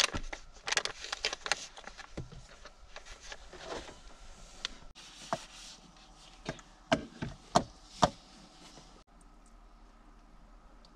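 Crinkling of a food packet being handled and opened, then a handful of sharp clinks and knocks of a spoon against a saucepan and plate, the loudest four coming quickly about seven to eight seconds in.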